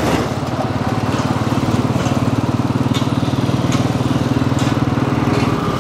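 Small vehicle engine running close by at a steady speed, with a fast, even pulse.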